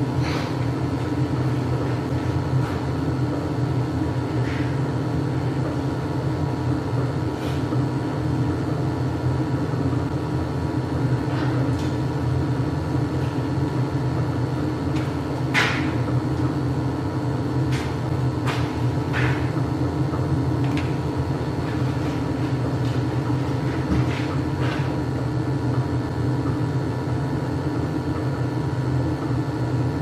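Steady hum of a Weil-McLain gas-fired hot water boiler running, with a few faint clicks scattered through.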